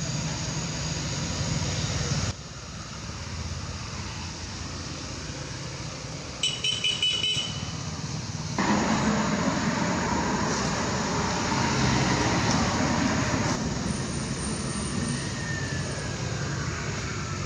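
Steady outdoor background noise with a low rumble like distant road traffic, changing abruptly several times. About six and a half seconds in there is a brief run of rapid high-pitched chirps.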